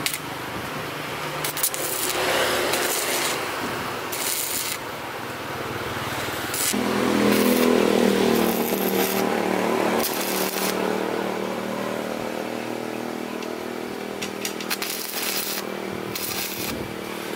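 A power tool working: scraping and rasping at first, then a motor comes on abruptly about seven seconds in and runs steadily.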